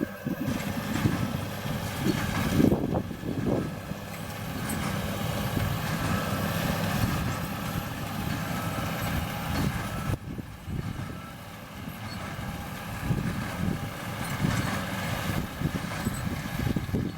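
John Deere 7820 tractor's six-cylinder diesel engine running steadily while working with a square baler in the field.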